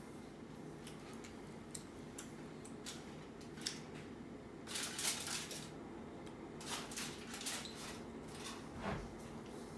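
A fork clinking and scraping against a dish of baked mac and cheese, in scattered short clicks with two louder scraping spells about five and seven seconds in.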